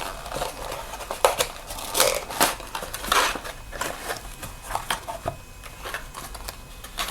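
Hands opening a tight cardboard box, with irregular scraping, tearing and rustling and a few sharp clicks and taps as the lid and contents are worked loose.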